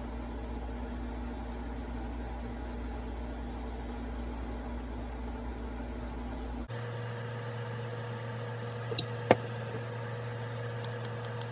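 Steady low background hum whose pitch shifts abruptly about two-thirds of the way in, with one sharp click shortly after.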